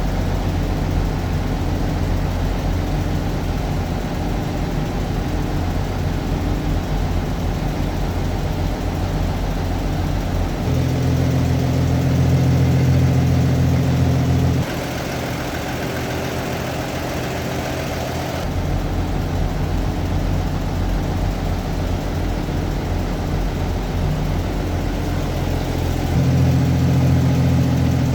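Toyota FJ40 Land Cruiser's petrol inline-six idling steadily, a low even hum. It gets louder and fuller about eleven seconds in, changes tone a few seconds later, and swells again near the end.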